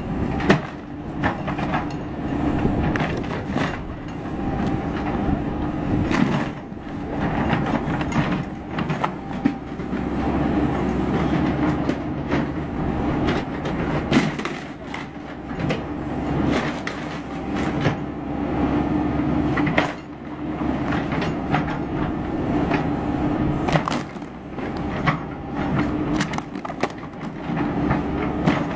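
JCB backhoe loader's diesel engine running steadily under hydraulic load while its bucket crushes car-audio speaker boxes and electronics, with repeated sharp cracks and splintering of wood and plastic.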